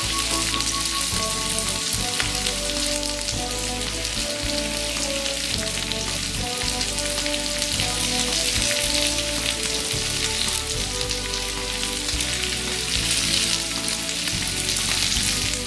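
Green beans and sliced Chinese sausage sizzling steadily in oil in a wok.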